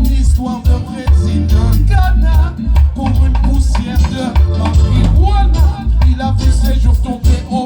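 Live reggae band playing, a heavy pulsing bass line under keyboards and drums.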